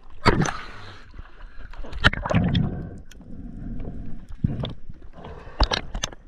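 Water sloshing, bubbling and splashing around an underwater camera in shallow surf, with irregular rushing bursts and a few sharp knocks.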